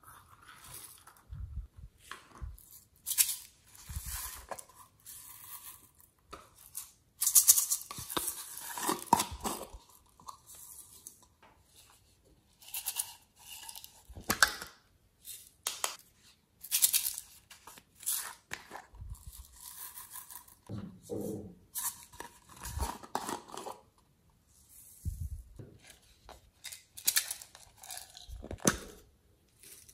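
Small plastic slime containers and soft clay being handled and emptied into a glass dish: irregular crackling, tearing and clicking sounds in separate bursts, with short quiet gaps between them.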